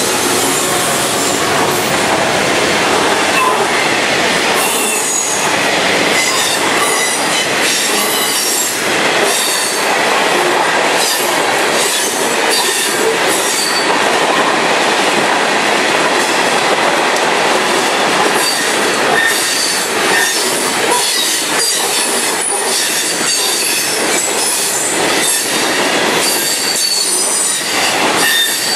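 Norfolk Southern mixed freight train cars rolling past at close range: a steady loud roar of steel wheels on rail, with repeated clatter and brief high-pitched wheel squeals coming and going.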